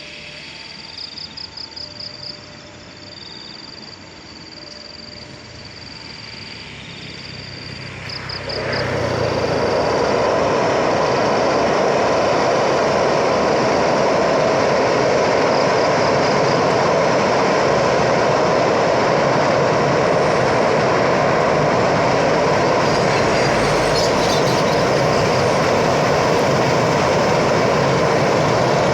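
A train passing close by: a loud, steady rumble of wheels on rails sets in about eight seconds in and holds. Before that there are quieter chirping animal calls.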